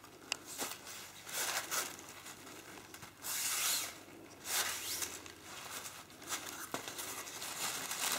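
Irregular rustling and crinkling of crumpled paper and fabric as a paper-padded cardboard wreath ring is wrapped in cloth, with a louder hissing rustle about three and a half seconds in and another just before five seconds.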